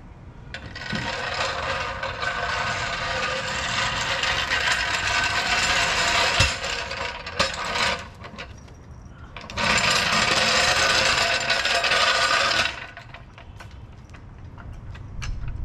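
Steel-wheeled hydraulic floor jack being rolled across concrete, a grinding rattle that runs about five seconds, pauses, then comes back for about three seconds more.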